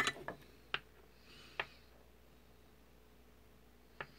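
Several faint, sharp clicks and taps of a small metal hand tool on the wires and solder joints of a drone ESC, most in the first two seconds with a brief scratchy rustle, and one more click near the end.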